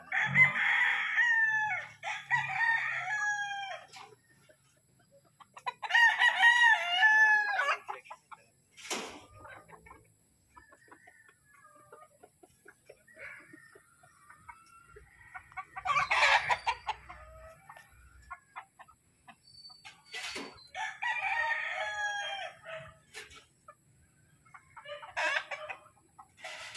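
Gamecock roosters crowing, about six crows a few seconds apart, each a second or two long.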